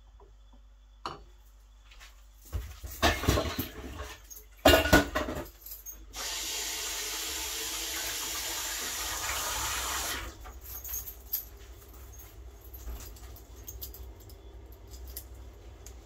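A few loud metal clanks and clatters of pans, then a kitchen tap running for about four seconds, starting and stopping abruptly. Light metal clinking follows.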